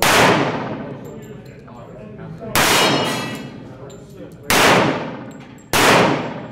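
Four handgun shots, the last two closer together, each followed by a long echo off the concrete walls of an indoor range.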